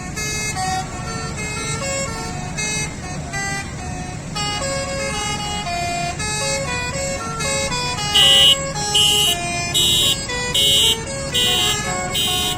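A truck's multi-tone musical air horn (horn basuri/telolet) playing a melody of short stepped notes, then from about eight seconds in a string of short loud blasts, about one and a half a second, over a low engine rumble.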